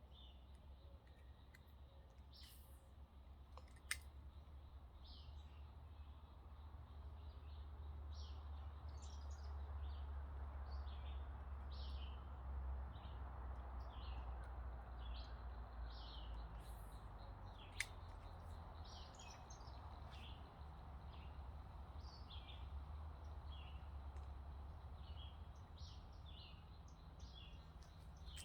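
Birds chirping: many short calls repeated over a low steady rumble and a faint haze that swells in the middle. Two sharp clicks are heard, about four seconds in and again past the middle.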